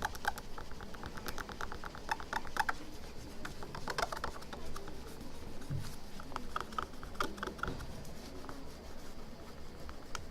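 Rapid small scratching strokes of a hand tool scraping leftover glue off a phone's LCD screen, coming in short bursts.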